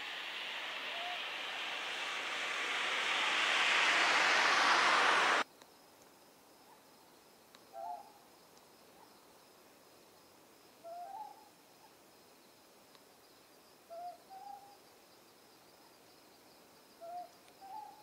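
Ryukyu scops owl calling: short two-note hoots repeated about every three seconds, four times, over a faint steady high insect trill. For the first five seconds a loud rushing hiss rises and covers the calls, then cuts off abruptly.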